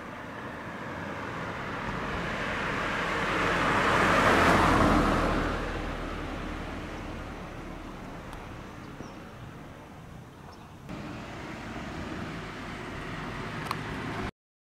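A car driving past close by on the road: tyre and engine noise swells to a peak about four seconds in, then fades away into a steady low outdoor rumble.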